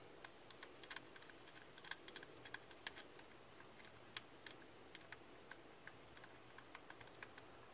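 Faint, irregular light clicks and ticks as fingers unscrew the loosened 8mm bolt that holds a Ford Mondeo ST220's camshaft position sensor. There are a few clicks a second, with the sharpest just before 3 seconds in and just after 4 seconds in.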